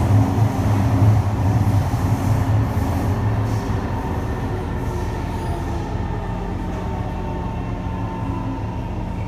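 Cabin noise of a Kawasaki C151 metro train running: a steady low rumble from the wheels and running gear with a faint humming tone over it. The rumble eases off and gets quieter about four seconds in.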